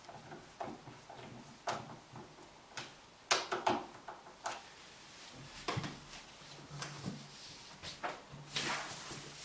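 Irregular light clicks and knocks of hands working on an interior door's handle and latch mechanism, the loudest pair about three and a half seconds in, with a brief rustle near the end.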